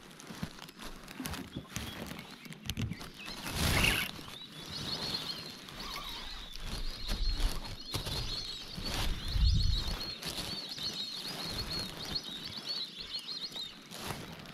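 Birds chirping in a thin, wavering high chorus from about four seconds in, over handling noise from a small aluminium boat, with a louder rustling burst just before the chirping starts and a few low knocks.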